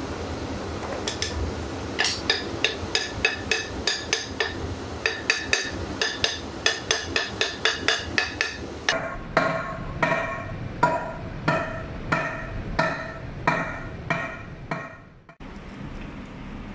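Hammer blows on metal, each strike ringing, while working on a large electric motor's bearing and housing: a quick run of about three strikes a second, then slower strikes with a lower ring that stop near the end.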